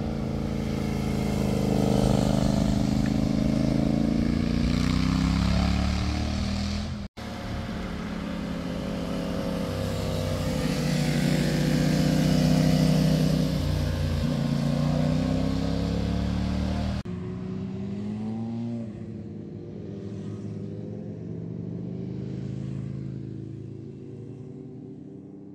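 Motorcycles passing one after another through tight bends, each engine note rising and falling as it goes by. There are abrupt cuts between passes at about seven and seventeen seconds, and the last pass fades out near the end.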